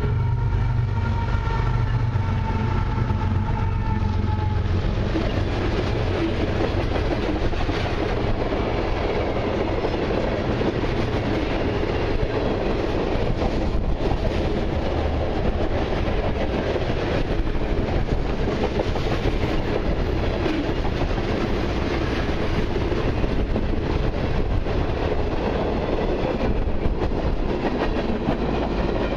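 Long freight train of mixed cars and autoracks rolling past: a steady rumble and clatter of steel wheels on the rails. In the first five seconds a steady multi-pitched tone and a low hum fade away as the lead locomotives move off.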